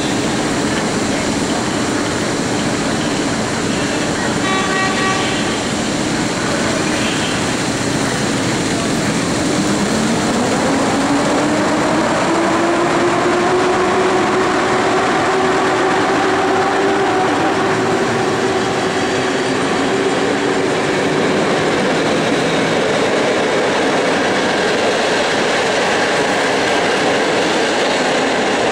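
EP07 electric locomotive hauling a train of passenger coaches as it pulls out: a steady rumble and clatter of wheels on rails. A short horn sounds about five seconds in. From about ten seconds in, a whine rises in pitch as the train gathers speed, holds steady, then fades.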